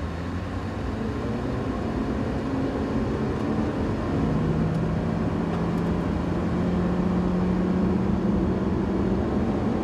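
Nissan Juke Nismo's turbocharged 1.6-litre four-cylinder under hard acceleration, heard from inside the cabin. The engine note climbs at first, then from about four seconds in holds a steady high drone while the CVT lets road speed keep rising.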